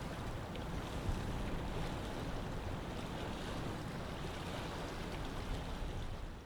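Lake water and small waves washing steadily, fading out near the end.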